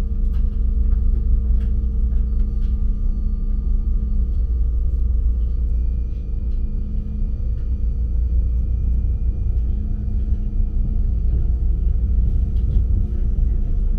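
ICE 3 high-speed train running: a steady low rumble with faint, steady whining tones above it and a few light clicks.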